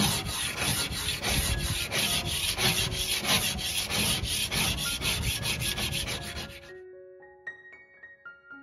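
Hand scraper blade rasping old varnish off a solid oak tabletop in quick repeated push strokes. The scraping stops abruptly about two-thirds of the way in, and a few soft piano notes follow.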